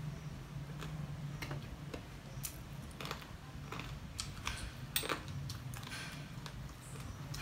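A person eating fried chicken by hand: irregular chewing and lip-smacking clicks, the sharpest about five seconds in.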